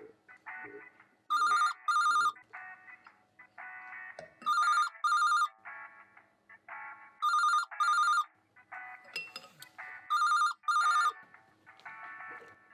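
Telephone ringing in the British double-ring pattern: two short rings, a pause, four times over, above quieter background music.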